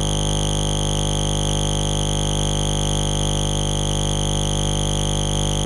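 A steady, unchanging electronic buzz made of many held tones at once, with no hoof beats or other events standing out.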